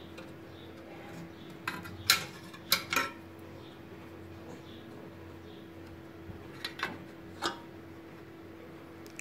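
Light metallic clinks and clicks as a brass busbar comb is handled against the miniature circuit breakers: a cluster of four about two seconds in, the loudest among them, and three more about three quarters of the way through, over a faint steady hum.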